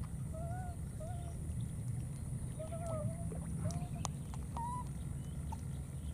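Baby monkey giving about five short, soft, arching coo calls over the first five seconds, over a steady low rumble.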